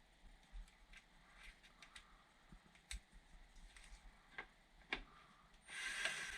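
Hand tools working on a furnace's induced draft fan: scattered light clicks and taps, then a short rasping burst near the end as fasteners are being undone.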